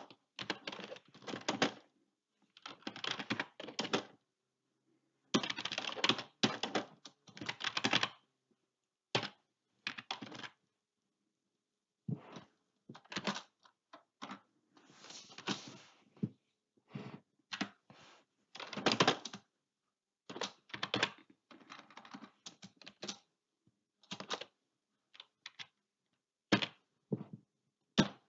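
Computer keyboard typing: quick runs of keystrokes in bursts of a second or two, with short pauses between them.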